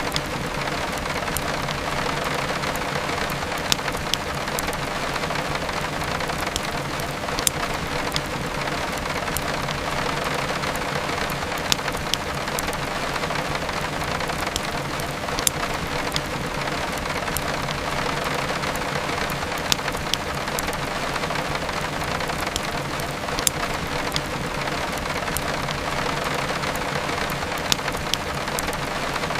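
Steady heavy rain with the sharp pops and crackle of a wood fire over it, a louder pop about every four seconds.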